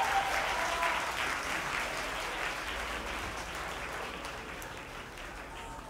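Concert crowd applauding, the clapping fading away gradually.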